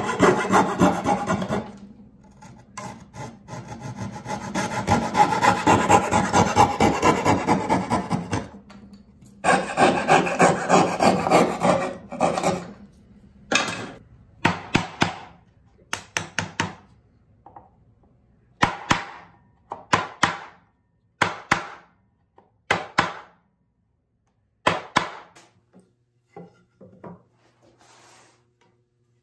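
Coping saw cutting out dovetail waste in pine, with fast rasping strokes and two short pauses, for about the first twelve seconds. Then a chisel cuts along the dovetail baseline in separate sharp cuts, about one a second, which stop a few seconds before the end.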